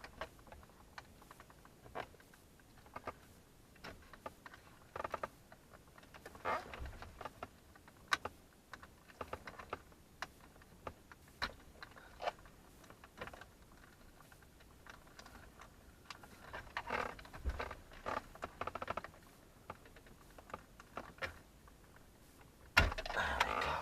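Scattered small plastic clicks and rattles as hands work the wiring connectors and plastic parts behind a car dashboard, with a louder clatter near the end.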